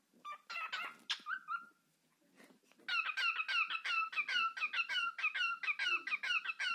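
Cockatiel singing: a short run of chirps about a second in, then, after a brief pause, a fast repeated warbling phrase of quick notes, about seven a second, from about three seconds in.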